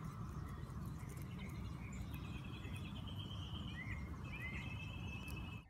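Outdoor ambience: a steady low rumble of background noise, with a bird calling in the background from about two seconds in, including two short chirps near the end.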